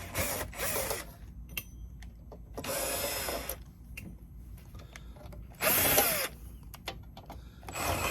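Electric drill with a driver bit backing out small cover screws in four short runs, the motor's pitch rising and falling with each run.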